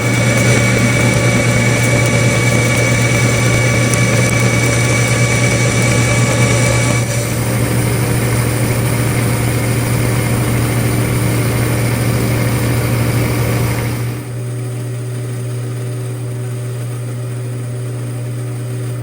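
A powered machine tool running with a steady motor hum and a layer of cutting noise over it. The sound changes about a third of the way in and gets a little quieter about three quarters of the way through.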